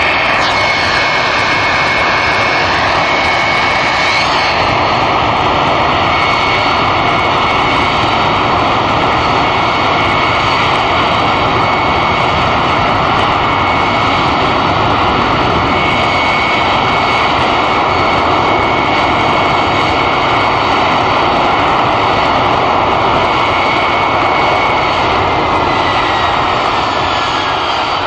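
Boeing 767's twin turbofan engines running at high power in a ground engine test: a loud, steady jet noise with high whining tones. One whine rises in pitch about four seconds in. Near the end a whine falls in pitch as the power begins to come back.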